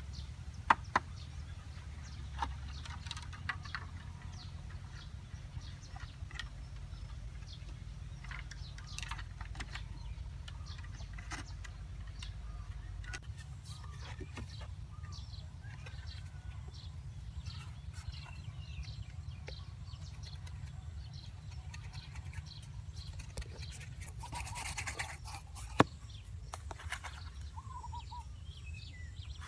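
Green bamboo poles being handled and set against earth walls: scattered light knocks and taps, with two sharp knocks about a second in and another near the end, over a steady low hum.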